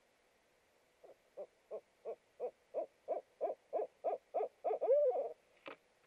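Barred owl hooting: a rapid, even series of about a dozen hoots, roughly three a second and growing louder, ending in a drawn-out gliding hoot. A single short sharp note follows just after.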